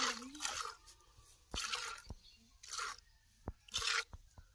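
Cow being milked by hand: jets of milk squirting into a plastic bucket in short hissing spurts roughly a second apart, with a few faint clicks between them.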